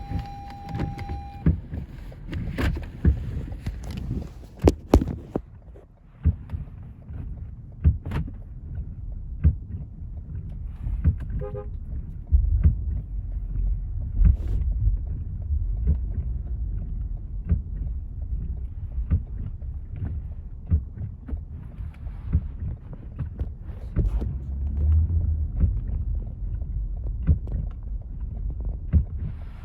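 Car driving through snow: a low rumble of engine and tyres, with many knocks and thumps scattered through it. The rumble grows heavier about twelve seconds in. A steady electronic tone sounds at the start and stops after about a second and a half.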